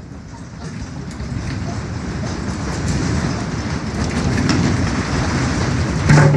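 Earthquake rumble growing steadily louder, with rattling and clattering throughout, and a sharp bang about six seconds in.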